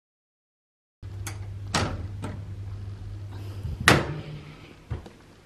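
A handful of sharp knocks and clicks over a steady low hum, starting about a second in, with the loudest knock near four seconds in.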